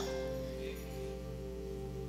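Soft background music of sustained, held chords.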